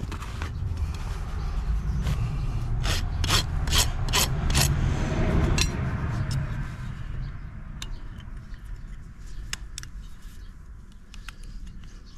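Handling noise from work on a horse's hoof during a trim: a quick run of about six short scraping strokes, roughly three a second, over a low rumble. After the strokes it turns quieter, with a few light clicks.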